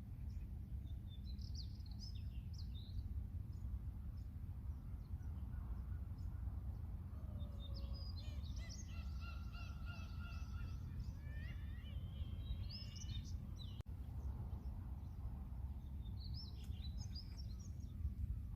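Seagulls calling in several bouts over a steady low rumble, with the longest and loudest bout of calls about halfway through.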